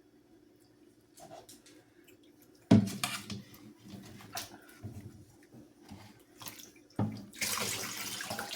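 Water splashing in a bath tub as a puppy is washed: a sudden splash about three seconds in, small splashes after, then a rush of poured or sprayed water near the end.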